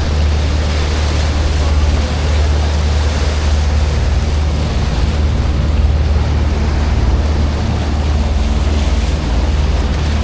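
Tour boat's engine running with a steady low drone, with water and wind rushing past the hull.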